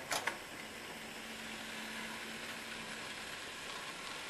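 HO scale model train rolling along the track: a steady hiss with a faint motor hum for the first few seconds, and a few sharp clicks right at the start.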